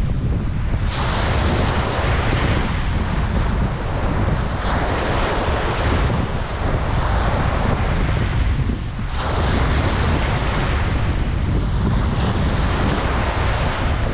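Ocean waves breaking and washing up a beach, a fresh surge of surf coming in about every four seconds, over a steady low rumble of wind on the microphone.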